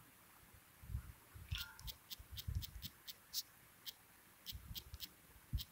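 Faint typing on a smartphone touchscreen keyboard while a password is entered: about a dozen short, light clicks at an uneven pace, starting about a second and a half in, with soft low thumps among them.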